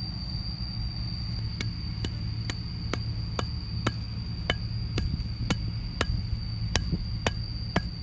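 Small metal hoe chopping at a bamboo cane: sharp knocks about two a second, starting a little over a second in. A steady high tone runs underneath throughout.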